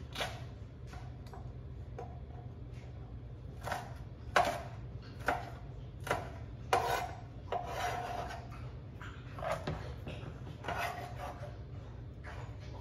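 Chef's knife slicing sweet peppers on a cutting board: a dozen or so short knocks of the blade against the board, unevenly spaced, some close together and some a second or more apart.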